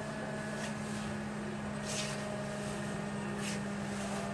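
Steady low machine hum with three short hisses.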